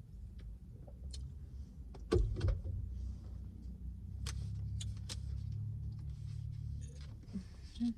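Low vehicle rumble that swells sharply about two seconds in and fades out near the seventh second, with scattered sharp clicks and rustles over it.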